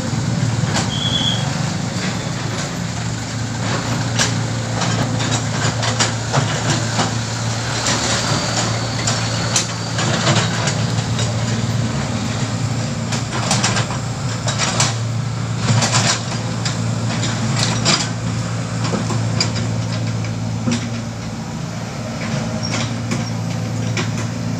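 Komatsu hydraulic excavator's diesel engine running steadily under work, with frequent clanks, knocks and rattling from the machine working its bucket, loudest and busiest in the middle stretch.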